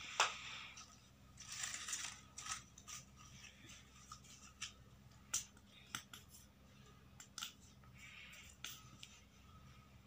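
Paper and card handled on a tabletop: a sharp tap as a board is set down, then crisp paper rustling with scattered light clicks and crinkles as a paper flower is worked by hand, over a faint steady low hum.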